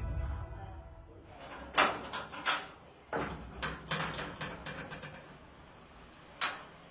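Metal grille gate clanking and rattling in a run of sharp knocks, then one more knock near the end.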